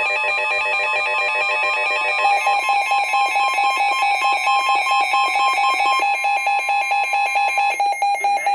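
NOAA Weather Radio alert tones signalling an incoming severe thunderstorm warning. A steady electronic alarm tone sounds throughout, and a rapidly pulsing alarm tone joins it about two seconds in.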